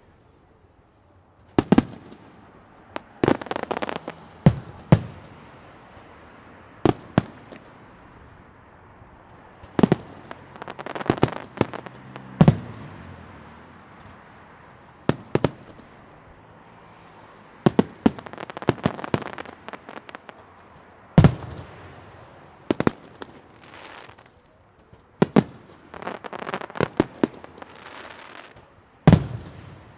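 Aerial fireworks going off: sharp bangs every one to three seconds, some in quick pairs, several followed by a few seconds of crackling.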